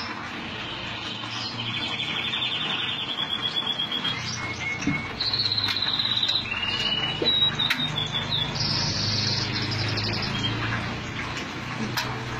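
A small songbird singing, with rapid high trills and chirps in several phrases about a second long, over a low steady hum.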